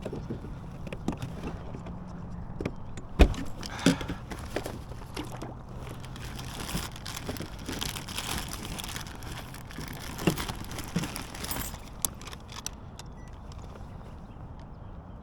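Handling noises aboard a kayak: scattered clicks, knocks and rattling, with one sharp knock about three seconds in.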